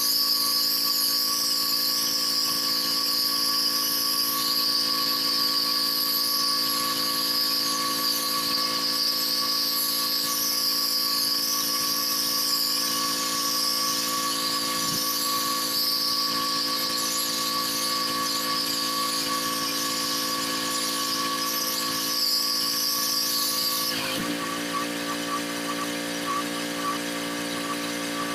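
Pressure washer's engine running steadily under a loud, high-pitched, wavering whine of the water spray. The spray stops abruptly about 24 seconds in, leaving the engine running on its own.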